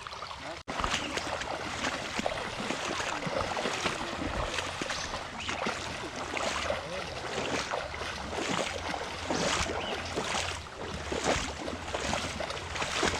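Flooded creek water rushing and splashing, with a steady low rumble underneath; the sound drops out for a moment just after the start.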